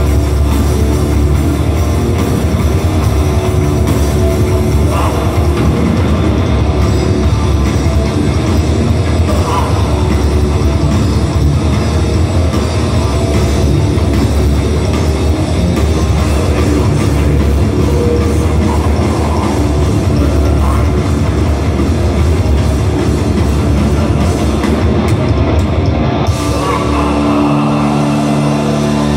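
Live black metal band playing loud, dense heavy metal with distorted guitars and a full drum kit. About three seconds before the end the dense wall of drumming thins out and held chords ring on.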